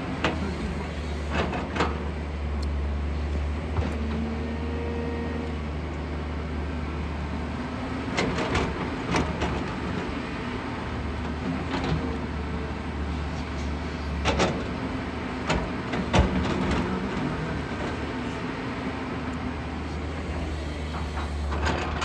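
JCB 215 excavator's diesel engine running steadily at work, with sharp knocks now and then from the digging gear, several of them close together about eight seconds in and again around fourteen to sixteen seconds.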